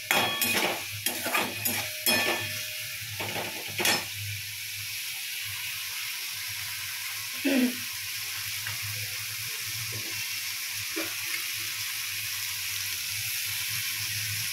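Metal spatula scraping and clacking against a kadai as potato, ridge gourd and onion are stirred, for about the first four seconds, with one more knock about halfway. Under it the spiced vegetables sizzle steadily in the pan, a splash of water just added because the masala was sticking.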